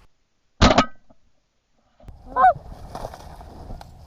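Geese honking: a loud honk about half a second in, then a shorter honk that bends up and down about two and a half seconds in, over a low rushing background.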